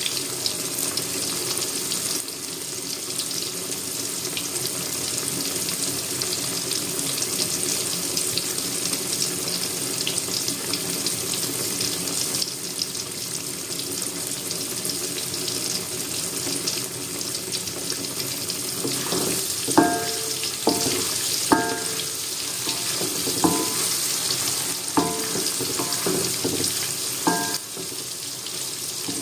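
Tofu frying in hot oil: a steady sizzle full of fine crackling. From about two-thirds of the way in, a string of short ringing clinks and scrapes of a utensil against the pan.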